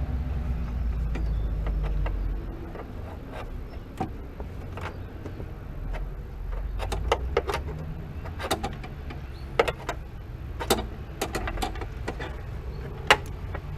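Irregular sharp metallic clicks and clinks of hand tools working at the clutch pedal bracket nuts under the dashboard, over a low steady rumble.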